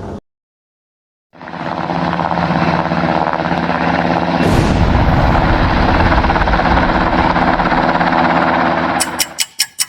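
After a brief silence, a heavy engine runs steadily with a low droning hum. A deep rumble with a rushing whoosh cuts in about halfway through. Near the end a rapid snare drum roll starts.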